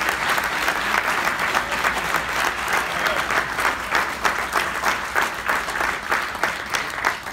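Audience applauding. The applause thins to separate claps near the end.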